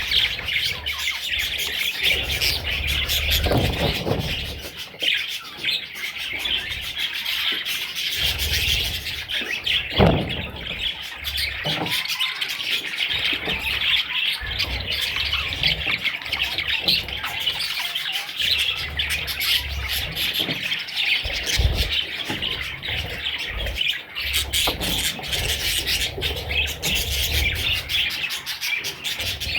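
Budgerigars chirping and chattering continuously, many calls overlapping at once, with a few low knocks mixed in.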